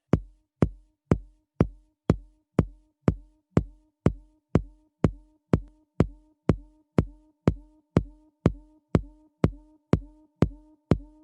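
Electronic dance music: a steady four-on-the-floor drum-machine kick drum at about two beats a second, with a soft pitched synth note sounding between the beats.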